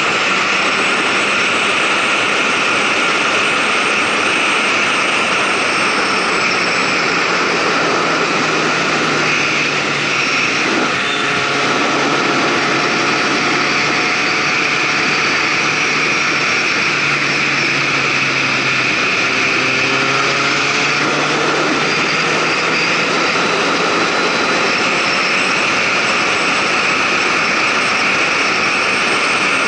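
Motorcycle riding at speed, picked up by an onboard camera: a steady rush of wind and road noise over the engine's hum, whose pitch climbs in a couple of steps as the bike accelerates.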